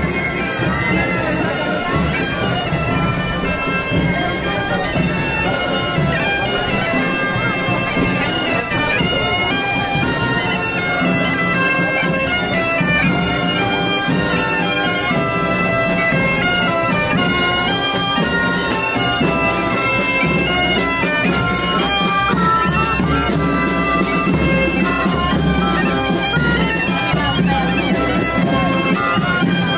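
Loud, shrill reed-pipe street music: a melody stepping from note to note over a steady low drone.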